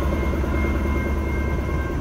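KTMB Class 26 diesel-electric locomotive running light past at close range: a steady, heavy diesel engine drone with a steady high whine over it.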